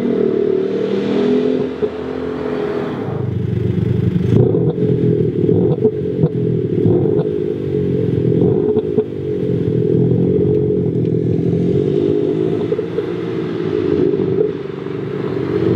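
Maxhaust active sound system playing its synthetic 'Beast#01' engine sound through the speakers of a Mercedes-Benz GLC, rising and falling with the revs, broken by sharp simulated backfire pops and crackles, the sharpest about four seconds in.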